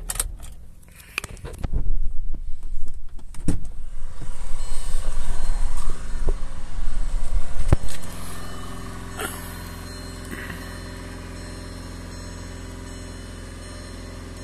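Loud rubbing, scraping and knocking of a phone being handled against clothing and the car's interior trim, with a few sharp knocks, ending about eight seconds in; after that a steady low hum.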